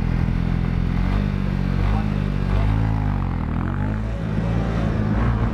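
Honda CB300R's single-cylinder engine pulling away from a standing start and accelerating, its revs rising and falling with the throttle between about two and four seconds in.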